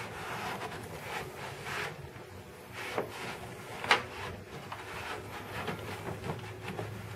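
Damp microfiber towel wiping and rubbing inside an empty car battery tray, soft swishing with two light knocks about three and four seconds in.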